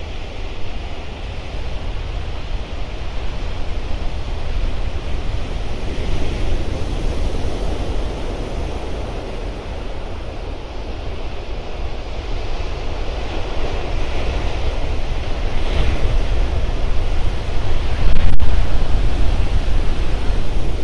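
Heavy surf breaking and washing up a sand beach, a continuous rush that swells and eases, with wind rumbling on the microphone. It grows louder toward the end, where a single sharp click sounds.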